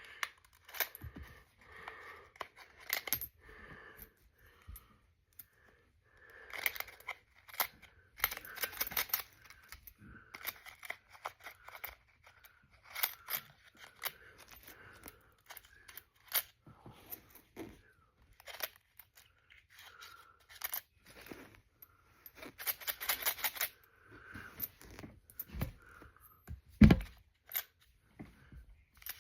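Pennies being counted and rolled by hand: irregular small clicks of coins, with rustling and crinkling of paper coin wrappers, and one louder thump near the end.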